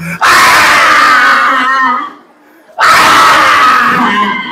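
A crowd of children shouting together, twice, each shout lasting under two seconds with a short break between.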